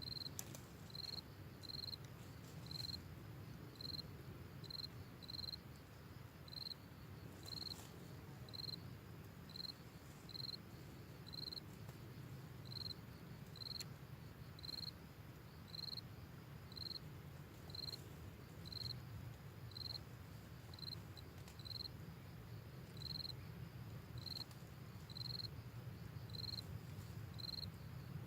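An insect chirping steadily in short, high, even pulses, a little faster than one a second, over a low steady hum.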